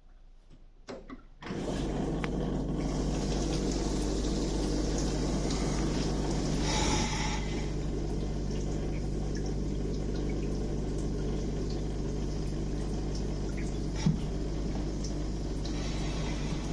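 Electrolux EW1077F washing machine running water: after a few clicks, water starts rushing through the machine about a second and a half in and carries on steadily over a low hum, with one sharp knock near the end.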